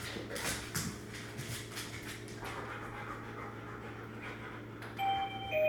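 A dog panting in quick, even breaths, about three a second. About five seconds in, a wireless doorbell chimes a two-note ding-dong, the second note lower.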